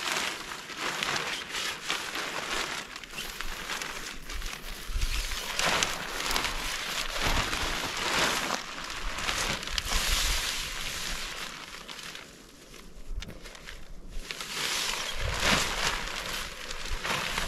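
Tent footprint's fabric rustling and crinkling as it is unfolded, shaken out and spread on the ground, with a few low thumps of handling.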